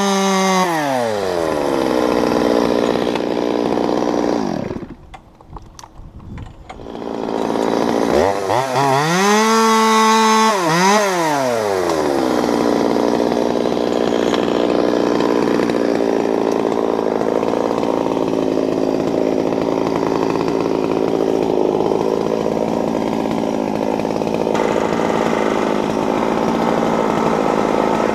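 Stihl MS 200T top-handle two-stroke chainsaw dropping from full throttle to idle, going quiet for about two seconds around five seconds in, then revving up again and settling into a steady idle for the rest.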